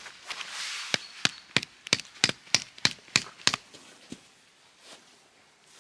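A run of about nine sharp strikes on a hard surface, about three a second, with a brief rustle just before them and a few softer knocks after.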